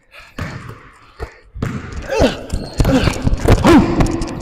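Basketball bouncing and thudding on the court during a one-on-one game, a few single bounces at first and then a quick run of bounces and knocks from about a second and a half in, with short vocal cries from the players in the second half.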